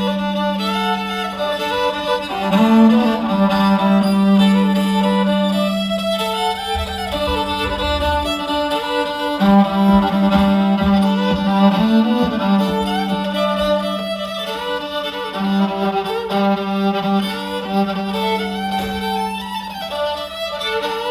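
Small string band, with fiddle, guitar and bass, playing an instrumental passage together as a sound check. The fiddle stands out with long held low notes.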